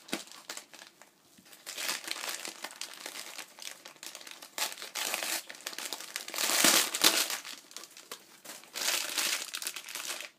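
Packaging crinkling and rustling in bursts as items are unwrapped and handled, the loudest burst about two-thirds of the way through.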